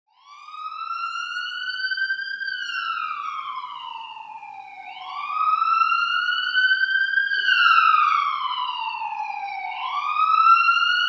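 Emergency vehicle siren sounding a slow wail: the pitch rises for about two seconds, falls for about two and a half, and starts over about every five seconds. It starts suddenly right at the start, with nothing before it.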